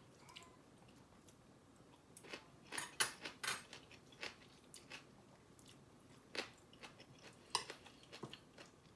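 Close-up mukbang chewing of a mouthful of bibimbap with kimchi: a run of irregular sharp, crunchy bites and mouth clicks, loudest about three seconds in.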